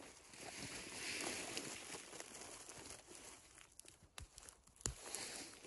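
Gloved hands rustling through moss and forest litter while picking mushrooms, with a couple of sharp ticks near the end.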